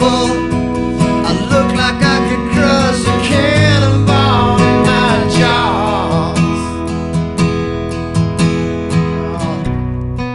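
Acoustic guitar strummed in a blues song with a man singing. The voice stops about six seconds in and the guitar strums on.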